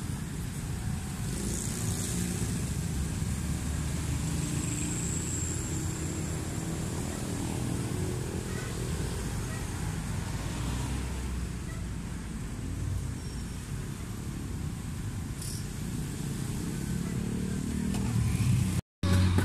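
Steady low rumble of road traffic, with vehicle engines running and passing, growing louder near the end.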